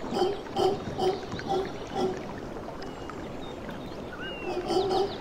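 Mantled howler monkeys howling in a rhythmic series of deep grunts, about two a second. The calls pause a little over two seconds in and start again near the end.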